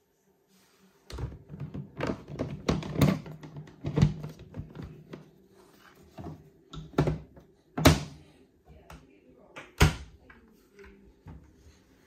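Plastic knocks, clicks and clunks of a Hotpoint ActiveCare heat pump dryer's filter frame and lower heat-exchanger access flap being handled, fitted and latched, with several sharper clunks among lighter clicks.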